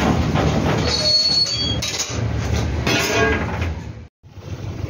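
Stokehold of a coal-fired steam tug: a steady rumble from the boiler, with metal scraping and clanking and a short high squeal of steel on steel about a second in, as a stoker works at the open firebox. The sound cuts out briefly near the end.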